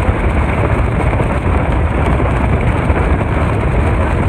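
Inflatable speedboat running flat out through choppy river water: a loud, steady rush of wind rumbling on the phone's microphone over the noise of the boat and its wake.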